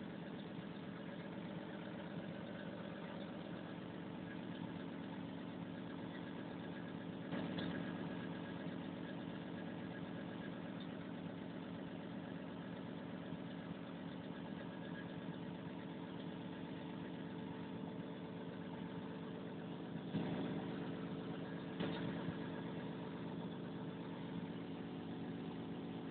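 Volvo 360 heavy machine's diesel engine running steadily at idle, with a few brief swells in level.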